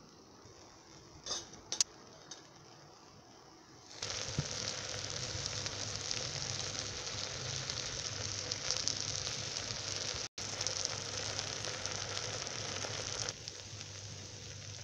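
Rice, moong dal and chopped tomatoes sizzling as they fry in a cooking pot with spices being stirred in. The steady frying hiss starts suddenly about four seconds in, cuts out for an instant in the middle, and turns quieter near the end; two light clicks come before it.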